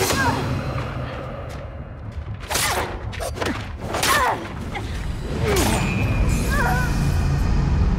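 Movie fight-scene sound: a rapid run of punch and impact effects with whooshes, densest a few seconds in, and short effortful grunts, over a low pulsing music score.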